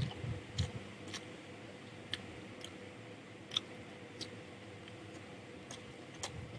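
Close-miked eating of rice and chicken curry: quiet chewing with scattered sharp, wet mouth clicks and smacks, about one or two a second.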